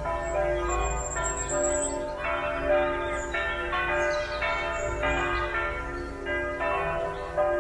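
Church bells pealing, a new stroke every half second or so, each ringing on under the next.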